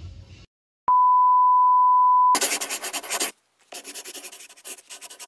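Intro sound effects for an animated logo: a click, then a steady electronic beep tone held for about a second and a half, then two stretches of scratchy, crackling noise with a fast flutter that cut off abruptly.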